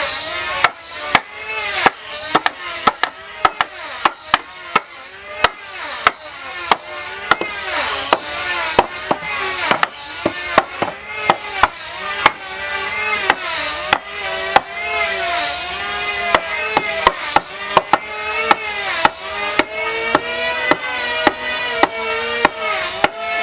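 Repeated sharp knocks of a tool striking wood, one or two a second and unevenly spaced, over background music with singing.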